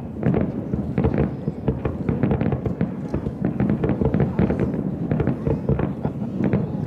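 Fireworks going off in a dense, continuous barrage of rapid overlapping bangs and crackles.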